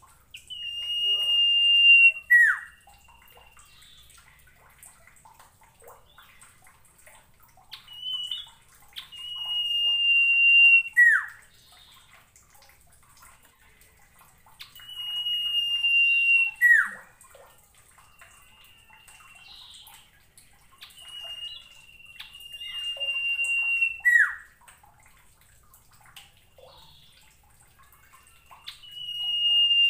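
Common iora (sirtu/cipoh) singing: a long, steady, high whistle that swells louder for about two seconds and ends in a quick falling note. The phrase repeats five times, about every six seconds.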